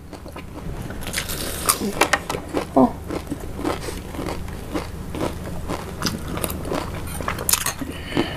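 Crispy fried wontons being bitten and chewed, with many short, irregular crunches.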